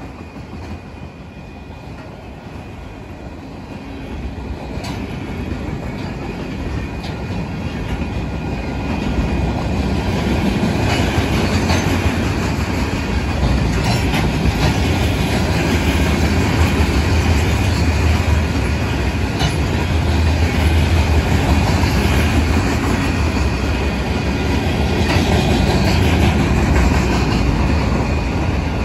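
Union Pacific mixed freight train rolling past, a steady rumble that grows louder over the first ten seconds and then holds. Wheels click over the rails now and then, with a faint wheel squeal.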